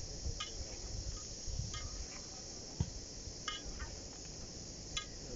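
Crickets chirping in a steady high-pitched chorus, with a short chirp repeating about every second and a half over a low rumble, and a single sharp click just past the middle.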